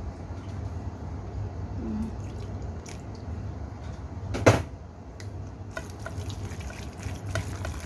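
Chopsticks stirring marinated minced meat with a little added water in a stainless steel bowl, loosening a mixture that was too thick. One sharp knock about halfway through.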